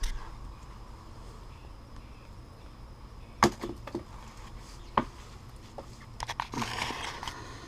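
Handling noise while filler is worked by hand: a few sharp clicks and knocks a little after the midpoint, a quick run of clicks, then a short rustle near the end.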